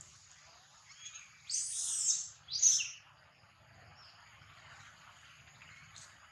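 Young long-tailed macaque screaming twice, high-pitched: a longer scream about a second and a half in, then a shorter one just after.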